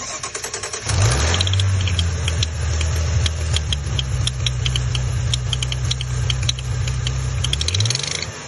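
Maserati Ghibli engine cranked by the starter, catching about a second in with a brief rise in revs, then running at a steady fast idle. A light, irregular ticking sounds over the idle: the engine ticking noise the owner is recording.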